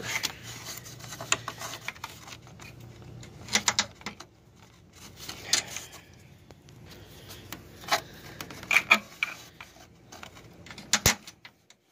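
Scattered small clicks and metallic clinks of a bolt and hand tools being handled as a radiator mounting bolt is worked into its hole and started by hand. The clicks come irregularly, in short clusters.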